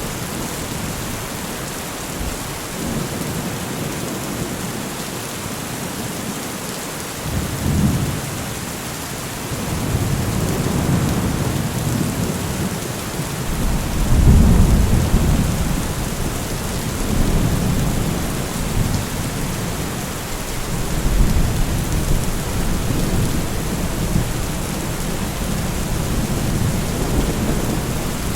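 Steady heavy rain with thunder rolling in repeatedly: deep rumbles swell about eight seconds in, again near ten, loudest around fourteen seconds, and once more near twenty-one.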